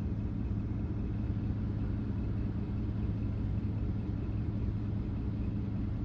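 Vehicle engine idling with a steady low rumble and an even hum.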